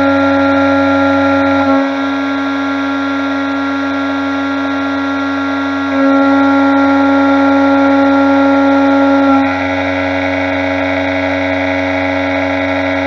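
DIY epoxy-granite CNC vertical mill face-milling the top of an aluminium block under flood coolant: a steady, high whine with many overtones over the hiss of cutting and coolant spray. It grows louder and quieter as the cut changes, stepping about 2 s in, again about 6 s in, and again near 9.5 s. It is recorded from a camera on an aluminium rod through the spindle head, which vibrates and gives a strange noise while machining.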